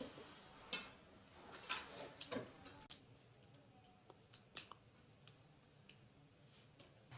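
Faint scattered clicks and light taps over near silence.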